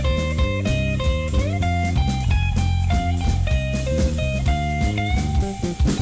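Funky instrumental jazz: an electric guitar plays a quick run of single notes, sliding up into a note a couple of times, over bass and a drum kit.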